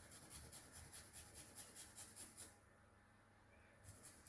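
Garlic being rubbed on a garlic grater: faint quick scraping strokes, about five a second, pausing for about a second past the halfway point and starting again near the end.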